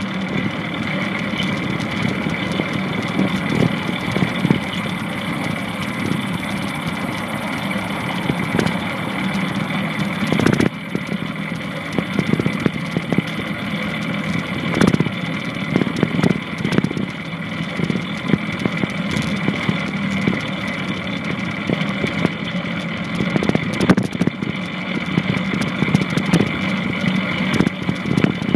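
Longboard wheels rolling steadily on pavement, a continuous rumble with a whine over it, broken by occasional sharp knocks.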